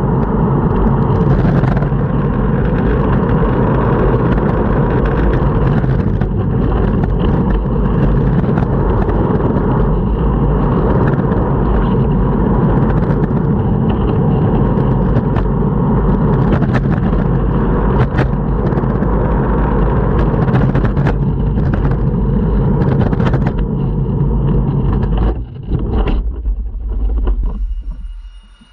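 Longboard wheels rolling over pavement: a loud, steady rumble with occasional clicks from joints in the surface, dropping away sharply just before the end.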